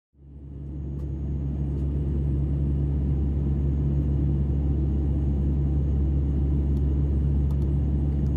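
Steady deep drone of a turboprop airliner's engines and propellers in flight, heard from inside the cabin. It fades in over the first second and cuts off suddenly at the end.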